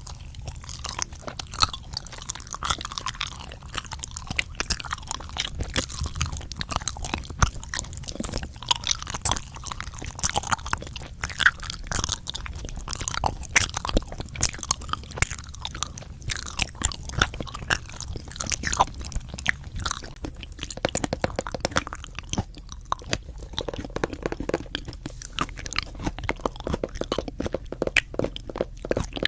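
Close-miked chewing of crunchy food, with rapid, irregular crunches.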